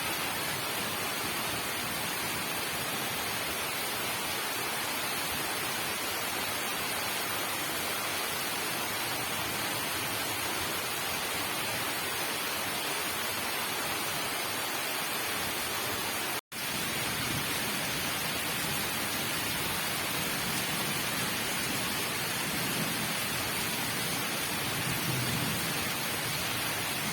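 Heavy rain pouring down steadily, an even hiss of falling water, with a brief cut to silence about sixteen seconds in.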